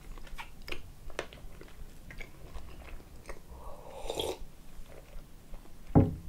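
Close mouth sounds of people eating blini (thin pancakes): soft chewing with scattered small smacks and clicks. There is a sip from a mug about four seconds in and a short knock near the end.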